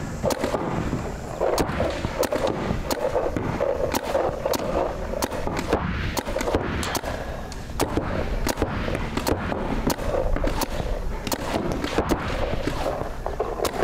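Paintball markers firing rapid, irregular shots, about two to three sharp cracks a second, as players trade fire in a one-on-one bunker drill.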